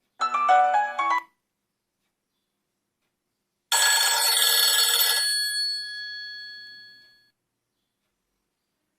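Nokia 3250 phone tones played back one after another: a short melodic phrase of about a second, then after a pause a bright, shimmering chime that cuts to a few ringing high notes and fades out over about two seconds.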